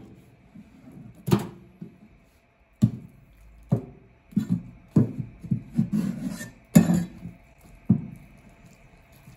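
Chinese cleaver chopping through a yellowtail head and its bones onto a cutting board: about nine sharp chops at uneven intervals, with a crunching stretch in the middle.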